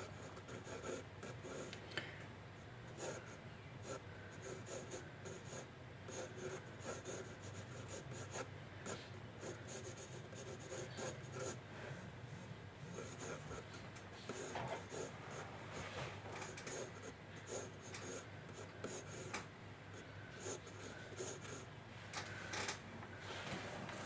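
Pencil sketching on sketchbook paper: many short scratching strokes in quick, irregular runs with brief pauses between them.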